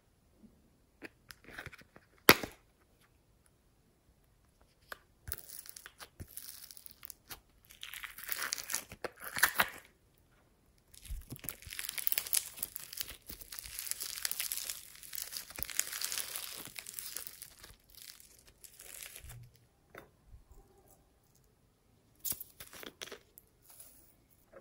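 Foam-bead slime (floam) being stretched and squeezed by hand, giving a crackling, crinkling sound in long stretches of several seconds. A single sharp click about two seconds in is the loudest sound.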